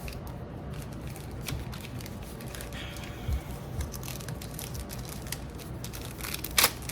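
Foil trading-card pack wrapper crinkling and tearing as it is opened, with scattered crackles and one louder sharp crackle near the end.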